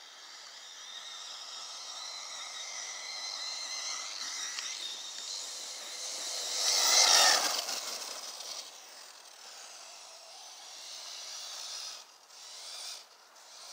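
Arrma Typhon 6S RC buggy's brushless electric motor whining under throttle on a 4S battery, pitch shifting with speed. It grows louder and passes closest about seven seconds in with a brief rush of noise, then fades, swelling once more near the end.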